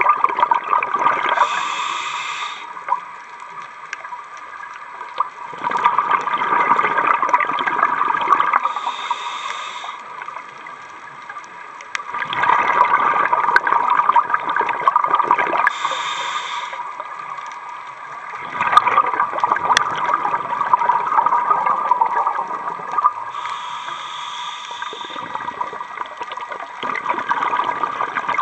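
Scuba diver breathing through a regulator underwater: a short hiss on each inhale and a gurgling rush of exhaled bubbles after it, the cycle repeating about every seven seconds.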